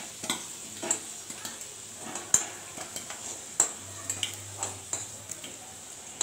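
A metal spatula scraping and clacking against a metal kadai and a steel bowl as fried potatoes are lifted out of hot oil, over a soft steady sizzle of the frying oil. The clacks come at irregular intervals, the sharpest about two and three and a half seconds in.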